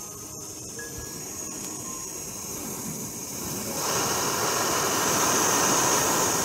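Steam hissing from the vent of a self-heating meal pack as its heater reacts. It is a steady hiss that grows clearly louder about four seconds in.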